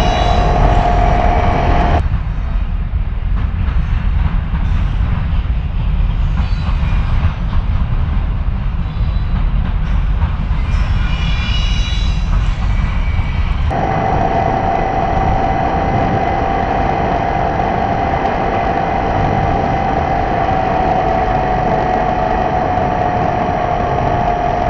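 R/C model airplane's motor and propeller running at a steady pitch, a constant whine over a rush of wind on the microphone. About two seconds in the whine drops away to a fainter, noisier sound, and a little over halfway a strong steady whine abruptly returns.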